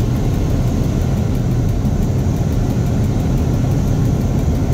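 Diesel shunting locomotive's engine running steadily, a constant low rumble heard from inside the cab as it moves slowly along the platform.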